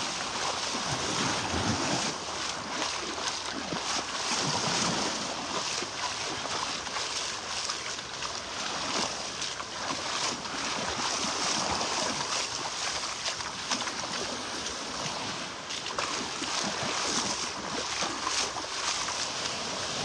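Small Gulf of Mexico waves lapping in the shallows at the shoreline, a steady wash of noise, with wind on the microphone.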